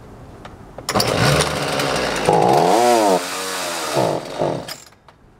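Homelite 3816C two-stroke chainsaw catching about a second in and running with the throttle blipped up and down, then faltering and dying near the end. It will not keep running, which the owner takes to mean the carburetor probably needs cleaning and possibly new fuel lines.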